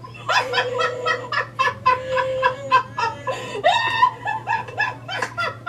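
Woman laughing hard in quick high-pitched bursts, mixed with the electronic Chewbacca growl of the talking mask she wears, which sounds as its jaw opens.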